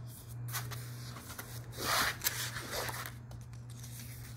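Large paper puzzle poster rustling and rubbing as it is handled and spread out, in several bursts with the loudest about two seconds in, over a steady low hum.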